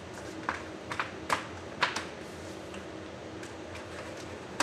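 An EcoStud snap-together wall stud being fitted into its track, giving about four sharp clicks and knocks in the first two seconds, then a couple of fainter taps.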